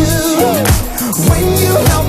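Upbeat pop-style worship backing music with a deep kick drum on a steady beat, about every 0.6 seconds, under a gliding melody.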